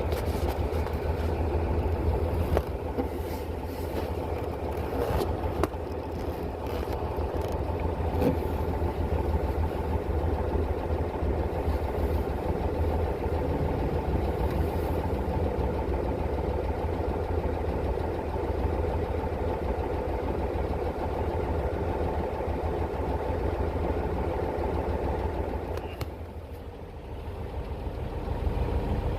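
Heavy diesel engine running steadily with a low hum, dropping off briefly near the end before picking up again.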